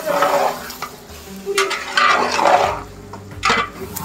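Food frying in a pot while a spoon stirs and scrapes it in a few strokes, with sizzling.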